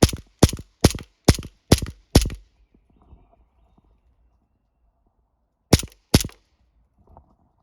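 Sig Sauer 1911 CO2 BB pistol firing a quick string of six sharp shots a little under half a second apart, then, after a pause of about three seconds, two more shots in quick succession. Each shot is a CO2 pop with the blowback slide cycling.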